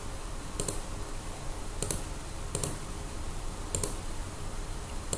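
Slow typing clicks, one keystroke about every second, as a terminal command is entered letter by letter.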